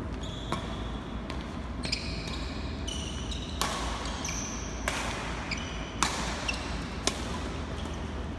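Badminton rally: the shuttlecock is struck by rackets about once a second, with short high squeaks of court shoes on the floor between the hits.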